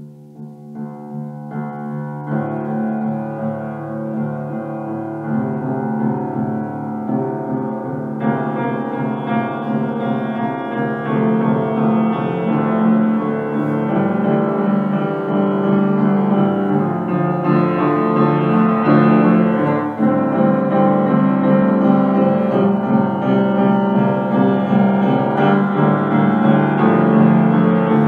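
Improvised music played on an electronic keyboard: sustained, layered chords that grow louder over the first ten seconds or so, then hold steady.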